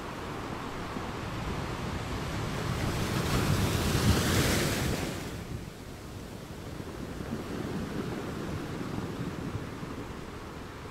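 Rushing noise that swells to a peak about four seconds in and then dies back to a lower, steady hiss.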